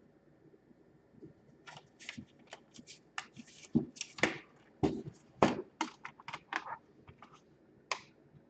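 Plastic laptop case parts clicking and snapping as they are pressed and worked together, a quick irregular run of sharp clicks, loudest in the middle.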